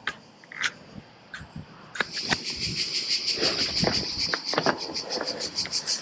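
Cicadas start a loud, fast-pulsing buzz suddenly about two seconds in and keep going. A few knocks and taps come from the handlebar-mounted camera being handled.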